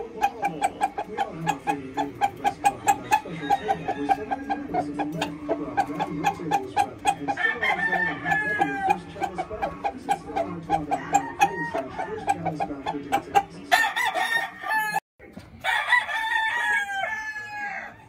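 Gamefowl roosters crowing over a steady din of clucking chickens, with one crow about halfway through and more, louder crows near the end. The sound cuts out briefly once near the end.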